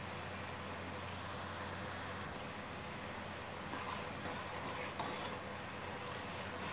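Sugar and water boiling into syrup in a pot on a gas stove: a steady hiss and hum. In the second half a spoon stirs the syrup with a few soft scrapes against the pot.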